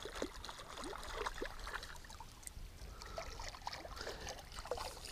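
Faint water lapping and trickling against the side of a fishing boat, with scattered small plinks and drips.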